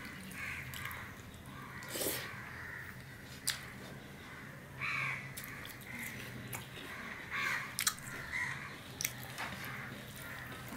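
Crows cawing several times in short harsh calls, with a few sharp clicks and soft wet sounds from fingers mixing rice and dal on a steel plate.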